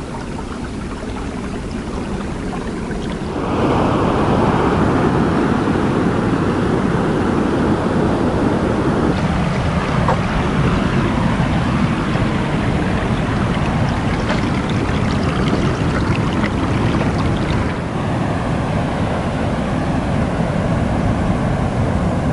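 Ocean surf washing onto a beach, with wind rumbling on the microphone. The sound steps up louder about three and a half seconds in and then holds steady.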